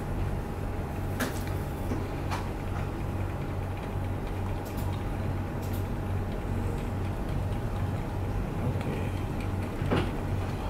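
A steady low hum from the running computer setup, with a faint steady tone above it. A handful of single key clicks, spread out, come about 1, 2, 5, 6 and 10 seconds in: the Delete key pressed to enter the BIOS during the reboot.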